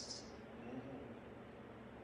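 A pause in a man's speech: faint room tone with a low steady hum, opening on the brief hiss of a final 's'.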